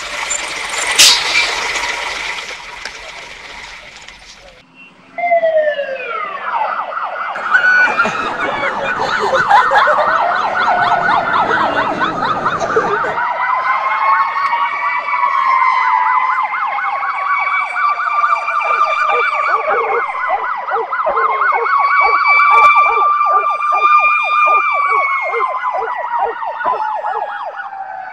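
A siren wails with a fast, even warble, its pitch gliding slowly up and down, starting about five seconds in. Before it, a noisy sound fades out, with a sharp crack about a second in.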